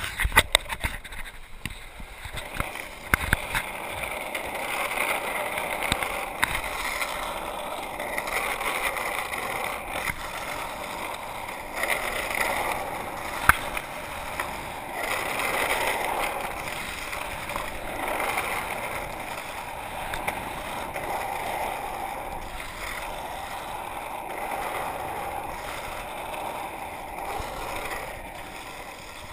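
Freebord wheels rolling over asphalt: a steady whirring rumble that swells and fades as the board carves and changes speed. A few sharp clicks come in the first few seconds and one more about halfway through.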